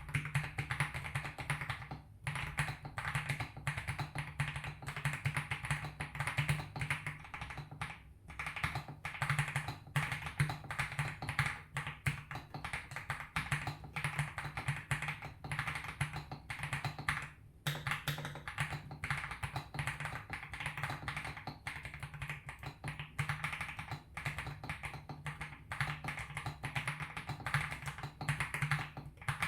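Typing on a Weikav Record Alice mechanical keyboard fitted with Durock Ice King tactile switches: rapid, continuous keystroke clatter, with short pauses about two, eight and seventeen seconds in.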